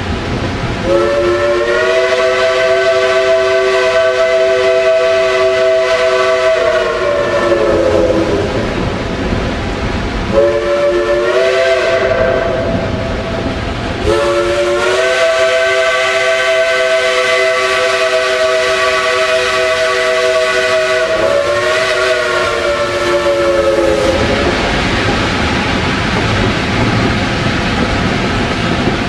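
Steam whistle of a three-truck Shay geared locomotive sounding for a road grade crossing: a long blast, a short one, another long one and a shorter one straight after. Each blast is a chord of several tones that sags in pitch as it trails off, over the steady running noise of the train.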